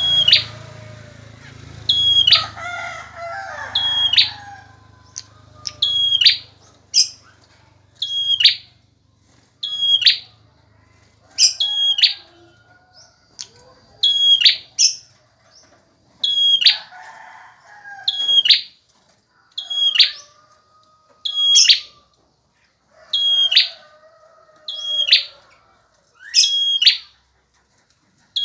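A male prinia (prenjak) calling loudly and persistently: a sharp, high call repeated about every one and a half seconds. Fainter, lower calls show in the background a few times.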